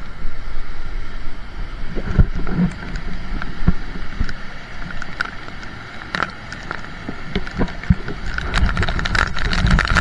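Steady rush of a fast-flowing stream in spate mixed with wind buffeting the microphone in heavy rain, with scattered sharp clicks and knocks that grow denser near the end.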